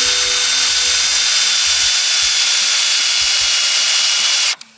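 Power drill boring a pilot hole for a nail into a wooden board, running steadily with a thin high whine, then stopping suddenly near the end.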